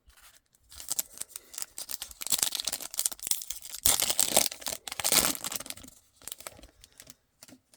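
Wrapper of a Topps Chrome Sapphire football card pack being torn open and crinkled, a dense crackling that runs for about five seconds and tails off into a few small clicks.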